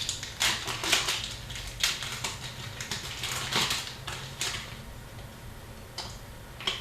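Upper Deck hockey cards and their foil packs being handled: a quick run of short papery swishes, crinkles and ticks as cards are slid and flipped through, thinning out after about four seconds.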